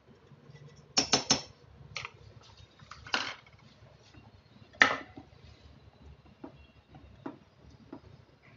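Steel spoon clinking against a metal cooking pot while stirring gravy: a quick run of three clinks about a second in, a few more scattered taps with the loudest near the middle, then fainter ticks.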